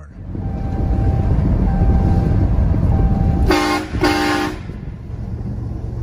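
HornBlasters Conductor Series 244K train horn sounding two short blasts, one right after the other, a chord of several tones, about three and a half seconds in. Under it runs the loud, steady low rumble of the moving truck, heard from inside the cab.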